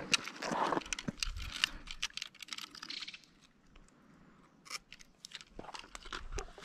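Irregular small clicks and rattles of hands working a plastic digital fish scale and its clip free from a largemouth bass's lip, with a short quiet pause about halfway through.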